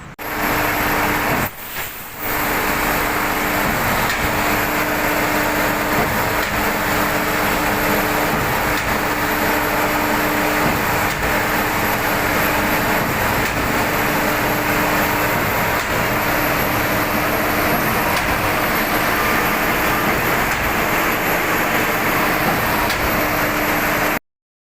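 Heavy construction machinery, such as a concrete pump or transit mixer, running steadily with a constant drone and a steady hum. The sound dips briefly about two seconds in and cuts off suddenly near the end.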